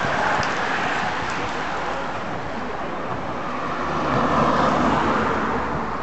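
Road-racing bicycles sweep past with the hiss of tyres on asphalt. About four seconds in, a following car drives past close by, its engine and tyres growing to the loudest point.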